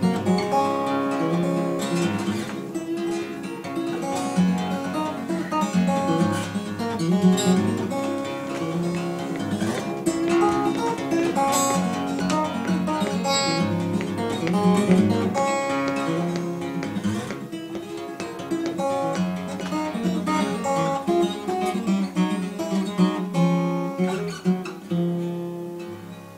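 Solo steel-string acoustic guitar played fingerstyle, a steady alternating bass under plucked melody notes, fading out near the end.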